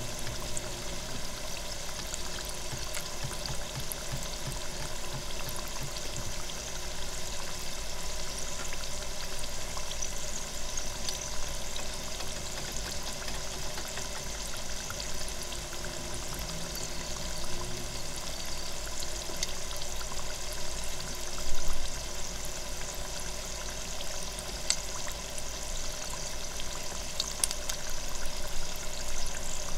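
Loempia deep-frying in hot oil in an electric deep fryer's basket: steady bubbling and sizzling with scattered small crackles, and one louder moment a little past two-thirds of the way through.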